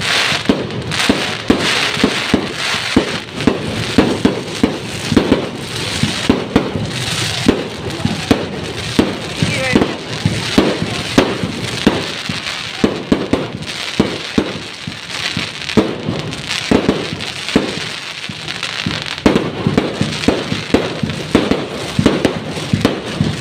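Fireworks going off nonstop: a rapid run of sharp bangs, about two or three a second, with steady noise between them.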